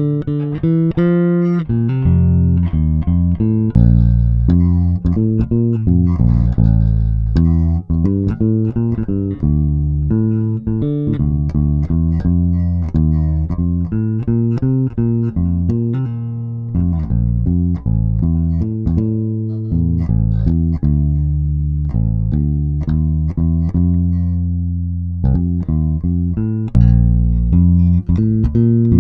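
Five-string electric basses played fingerstyle with both pickups blended, in turn: a Bacchus Handmade Series Woodline 517 AC-BGP/E, a Woodline5-HL24/E, then a Momose MJ Five-EWC. It is a solo bass line of plucked notes.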